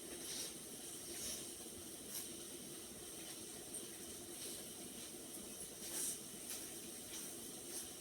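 Hot pot broth simmering with a steady faint hiss, with a few short clicks and mouth sounds of eating scattered through.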